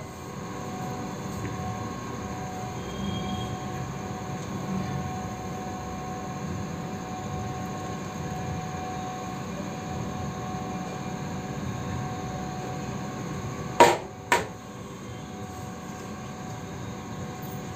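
A steady mechanical hum with several steady tones in it, broken about fourteen seconds in by two sharp knocks of kitchen utensils, half a second apart.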